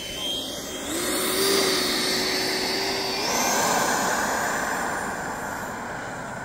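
Electric ducted fan of a Freewing F-86 Sabre 80 mm RC jet spooling up with a high whine. The pitch steps up again about three seconds in as it goes to full throttle for the takeoff roll, then the sound eases off as the jet pulls away.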